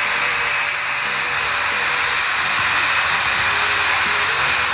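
Power tool cutting or grinding metal on a wheel spacer, a steady loud hiss without letup.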